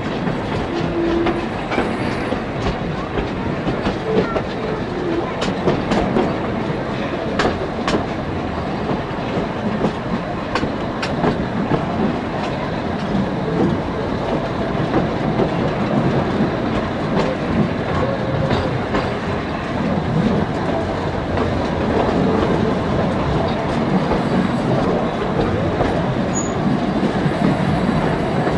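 Narrow-gauge passenger carriage running along the track, heard from an open window: a steady rumble of wheels on rail with irregular clicking over the rail joints.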